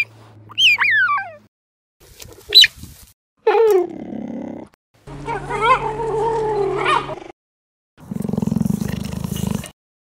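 Cheetah calling: a few short, high-pitched chirps that sweep down and up in the first three seconds, then longer wavering calls. Near the end comes a low, fast-pulsed rasp.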